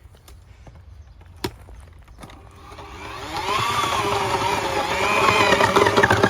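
Post-hole auger's motor speeding up about three seconds in and running loudly, its pitch rising and wavering as it bores into the ground. Before that there is a single knock.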